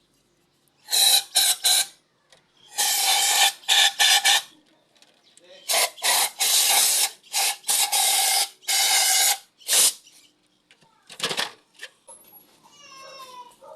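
Aerosol carb and choke cleaner sprayed in a series of hissing blasts, each about a second or two long, to clean carbon deposits off an EGR valve.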